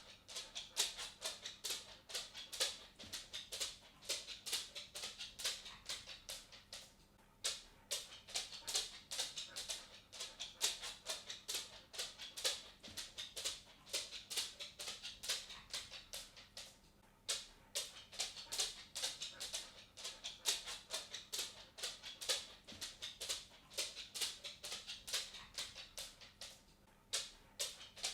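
A dog's claws clicking on a wooden floor as it walks, a quick uneven patter of several clicks a second, broken by a few short pauses.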